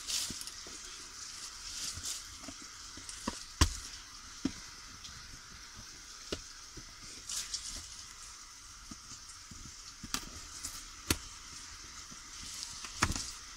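Handling and scraping of a cardboard box as its taped flap is picked at with a small pointed tool: a scratchy, crackly rustle with scattered sharp clicks and taps, the loudest about three and a half seconds in.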